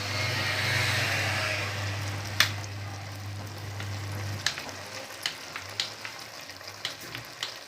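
Pot of beans porridge hissing and sizzling on the fire just after red palm oil goes in, with sharp clinks of a spoon knocking against the pot from about two and a half seconds in. A low steady hum runs under the first four and a half seconds.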